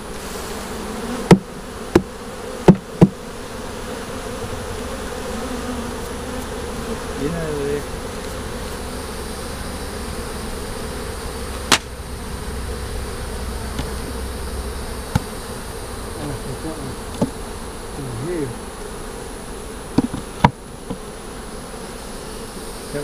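Honeybees buzzing steadily around an open wooden hive, with a few sharp knocks of frames and hive tool against the wooden box: four in the first three seconds, one midway and two near the end.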